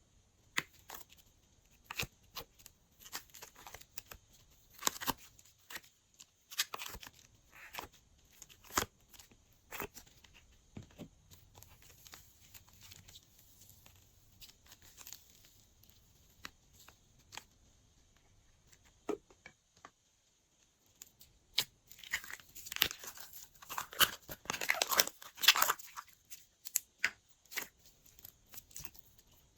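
Glossy slime being squished and mixed by hand: scattered sticky clicks and crackles, falling quiet for a few seconds past the middle, then a denser run of crackling near the end.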